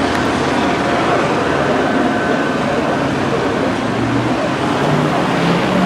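Steady city street traffic noise. Near the end a vehicle engine rises in pitch as it accelerates.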